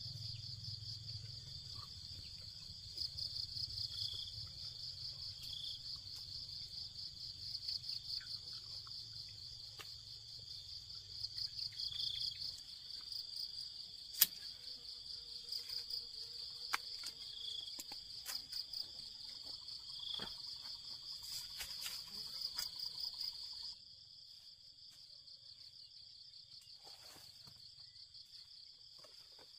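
Insects chirring steadily in a high, pulsing trill. About halfway through, a single sharp snip of pruning shears cutting a custard apple's stem. Near the end the chirring drops quieter.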